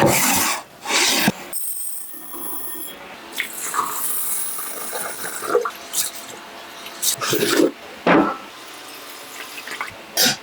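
Water running and splashing in a kitchen sink, in several separate rushes, the loudest two in the first second and a half.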